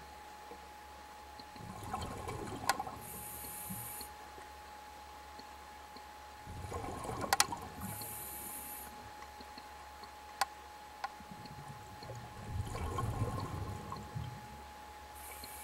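Scuba diver breathing through a regulator underwater: three gurgling bursts of exhaled bubbles about five seconds apart, each followed by a short hiss of inhalation. A faint steady tone and a few sharp clicks run underneath.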